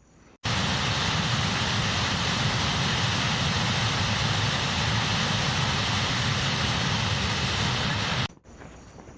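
Steady, loud rushing noise with no distinct tones, starting abruptly and cutting off abruptly about eight seconds in, leaving a faint hiss.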